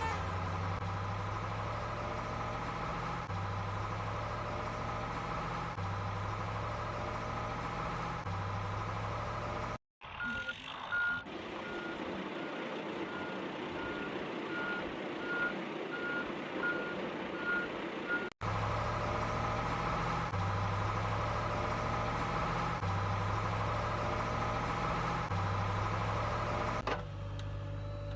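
A heavy-vehicle engine drone looping every couple of seconds. Near the middle it cuts suddenly to a reversing alarm beeping about one and a half times a second over a rougher motor hum, then cuts back to the engine drone.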